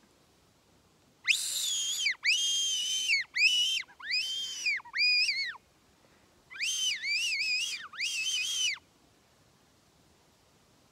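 A person whistling loudly with the mouth, high and shrill. There are five notes, each rising then falling, then a short pause and three more.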